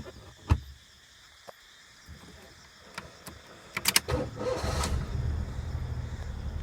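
Daihatsu Tanto kei car: a few clicks and knocks inside the car, then the engine starts about four seconds in and settles into a steady low running sound.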